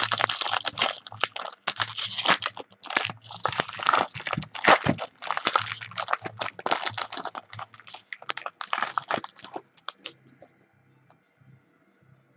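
Plastic wrapper of a Topps Triple Threads trading card pack being torn open and crinkled, a dense irregular crackle that stops about ten seconds in, leaving only a few faint clicks.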